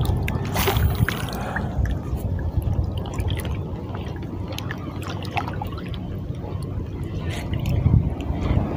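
Sea water lapping and sloshing at the water's edge, with scattered small drips and splashes, swelling a little near the end.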